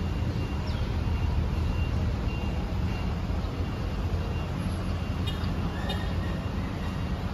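City street traffic: a steady low rumble of vehicle engines going by, with faint short high beeps recurring every second or so.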